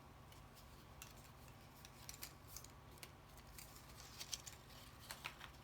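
Faint, scattered small clicks and rustles of card stock being handled and pressed into place over a low steady hum.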